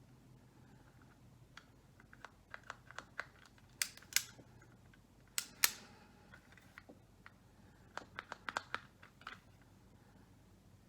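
Scattered sharp plastic clicks and snaps of a toy being handled, in uneven clusters, with a few louder snaps about four and five and a half seconds in.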